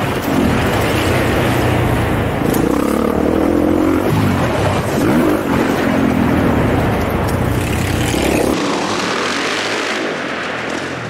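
Dirt bike engine heard close from the rider, revving up and falling off again and again as it is ridden around a motocross track. About eight and a half seconds in, the close engine sound gives way to a thinner, more distant dirt bike.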